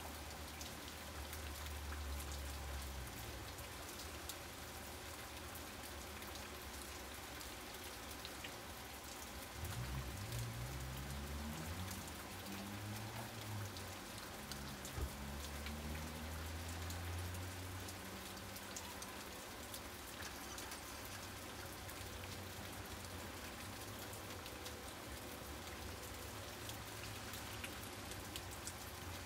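Steady rain falling on lawn and floodwater. A low rumble rises in pitch for several seconds around the middle.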